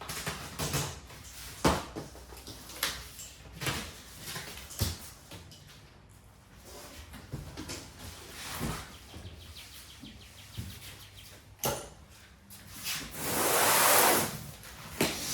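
Cardboard box and packing being handled during an unboxing: a run of short knocks, taps and scrapes, then a longer, louder scraping noise near the end.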